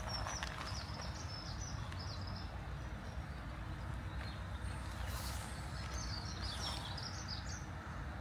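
Songbird singing: quick, high warbling phrases in the first couple of seconds and again about six seconds in, over a steady low rumble.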